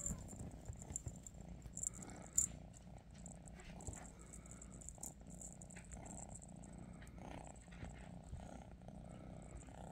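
Black Scottish Fold kitten purring steadily in a low, pulsing rumble, with a few faint clicks and rustles from the feather toy play.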